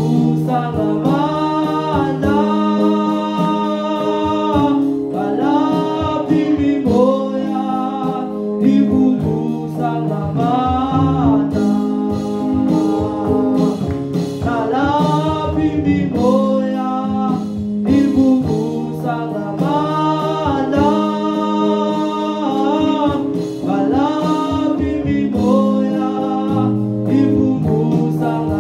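A man singing a gospel song in phrases over electronic keyboard accompaniment, with held chords and bass notes underneath.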